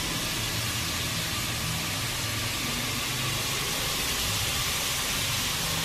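Diced onions sizzling steadily in hot oil in a cast iron Dutch oven as they caramelize, an even hiss, with a low hum underneath.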